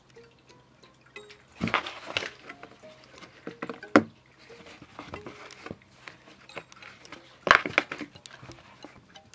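Cat moving inside a cardboard box, scuffing and rustling against the cardboard in two short bursts about two and eight seconds in, with one sharp knock on the box about four seconds in.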